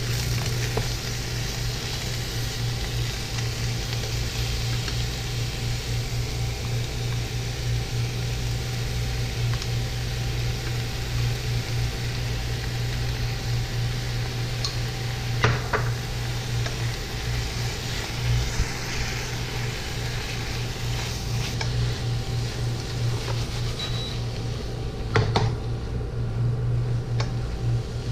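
Squid and vegetables sizzling in a nonstick frying pan as they are stir-fried with wooden chopsticks, over a steady low hum. A few sharp clacks of utensils against the pan stand out, the loudest about 15 and 25 seconds in.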